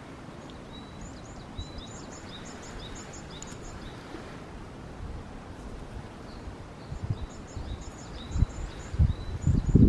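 A small songbird sings two runs of quick, high chirps, one at the start and another from about seven seconds on, over a steady low outdoor rustle. Low thumps come in near the end.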